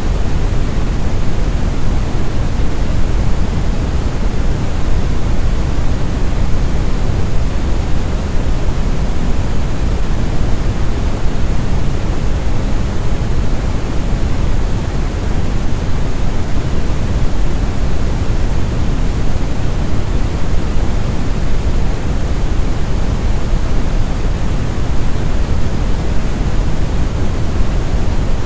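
Steady deep brown noise: a smooth, even rumbling hiss weighted heavily toward the bass, with no tones or events.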